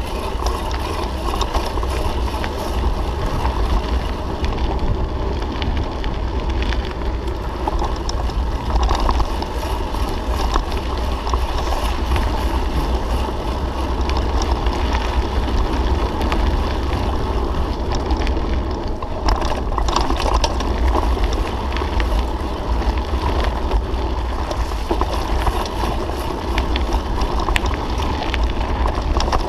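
Mountain bike riding over a gravel forest track, heard from a camera mounted on the handlebars: steady tyre noise on gravel with small rattles and clicks from the bike, under a heavy low rumble of wind on the microphone.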